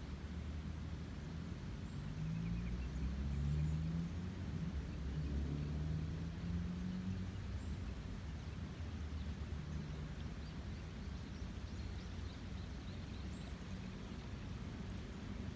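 Rain-swollen river rushing steadily, with a low rumble underneath that swells a few seconds in.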